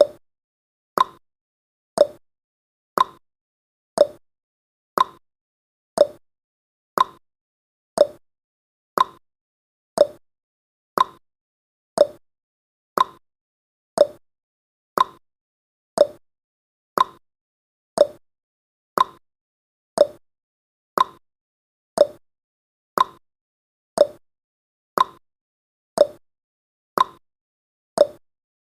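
Countdown timer's clock-tick sound effect, ticking once a second in a tick-tock pattern: the ticks alternate between a higher and a lower pitch.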